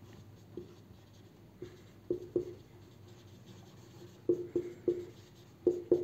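Marker pen squeaking across a whiteboard in short strokes while a line of text is written. The strokes come singly at first, then in a quicker run during the last two seconds.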